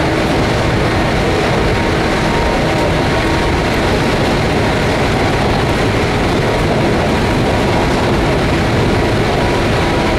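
Cabin noise inside a JR 119 series electric train car running at steady speed: an even, loud rumble of wheels and running gear on the track, with a faint steady hum held through it.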